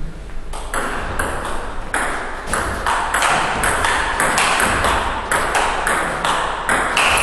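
Table tennis rally: the celluloid ball clicking off the paddles and the table in quick, even alternation, about two hits a second, starting about half a second in.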